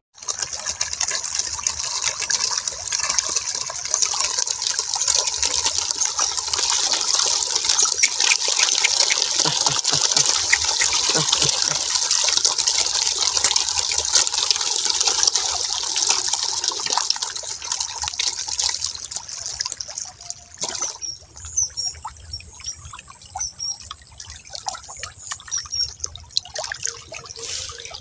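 Underwater water sound: a steady hissing rush full of fine crackling. After about twenty seconds it thins out into scattered clicks, drips and short high blips.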